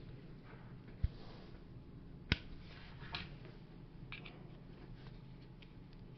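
Faint handling noises over a steady low hum: a low thump about a second in, a sharp click a little after two seconds, then a few light ticks.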